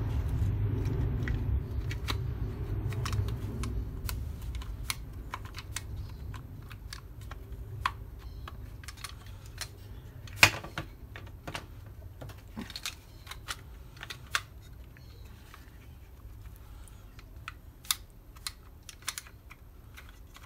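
Irregular small plastic clicks and taps as the plastic housing and cover of a Kiekert electric door lock are handled and pressed together, with one sharp, louder click about halfway through. A low rumble of handling noise fades out over the first few seconds.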